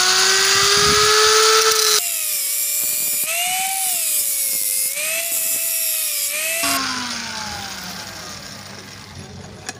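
Electric angle grinder with a thin cutting disc cutting through the steel body of an old spark plug held in a vise. The cut hisses loudly and the motor's whine wavers and dips in pitch under load. About seven seconds in the grinder is switched off, and its whine falls away as the disc winds down.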